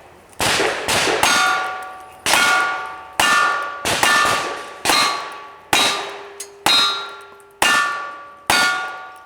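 Revolver shots at steel targets, about one a second. Each sharp crack is followed by the ring of the steel plate as it is hit.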